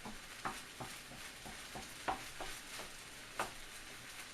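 Fried rice sizzling in a hot pan as a spatula stirs it, with a scattering of scrapes and clicks of the utensil against the pan.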